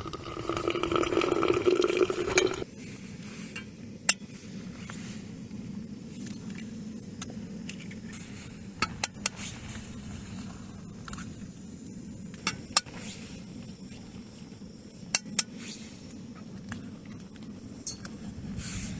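Hot water poured into a container for about two and a half seconds, stopping abruptly. Then scattered light clinks and taps of camping cookware and a spoon over a steady low background rush.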